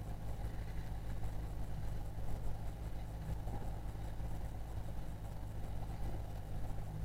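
Outboard motor of an inflatable coach boat running steadily at low speed as it follows a dinghy, with wind and water noise over it.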